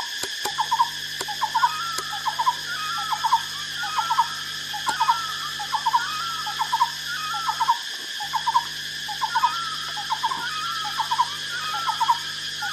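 An animal call repeated about every three-quarters of a second, each a couple of quick short notes followed by a higher wavering note, over a steady high-pitched drone.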